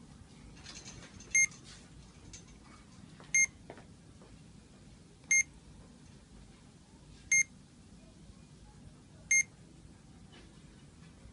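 CADD-Legacy Duodopa infusion pump beeping, one short high beep about every two seconds, as it runs through its settings after being started.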